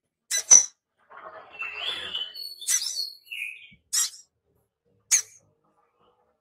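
A caged sogon (sogok ontong), a small sunbird-type nectar feeder, calling sharp, high "cit" notes. Single chirps fall about a second or so apart, and a scratchy chattering phrase comes between the first two.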